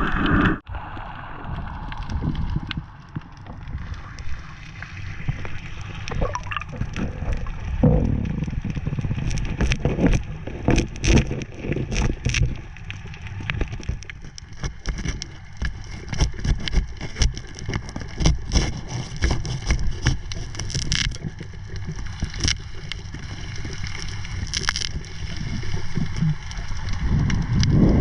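Water heard underwater, most likely through a diving camera's housing: a constant low rumble and gurgle, with many short sharp clicks and knocks scattered through it.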